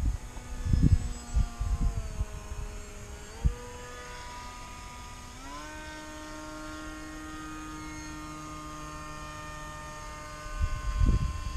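Brushless electric motor and propeller of an FPV model plane in flight, giving a steady hum that drops in pitch about two seconds in, then steps back up twice as the throttle changes. Wind gusts buffet the microphone at the start and again near the end, louder than the motor.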